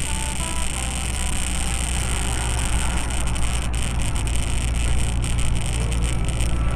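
A car driving: a steady low rumble of engine and road noise with an even hiss over it.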